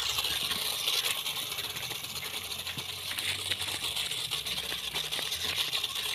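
Toy RC off-road crawler driving over dirt: its small electric motor and gears whir steadily while the tyres crackle over dry leaves and twigs.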